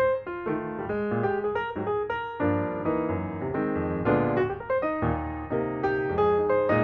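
Background piano music: a light melody of quickly changing notes over a steady accompaniment.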